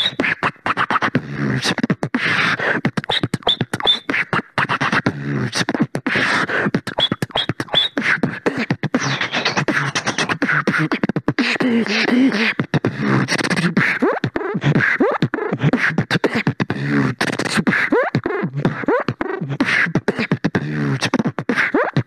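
Solo human beatboxing: a fast run of mouth-made drum clicks and hits, mixed with pitched vocal tones and short glides.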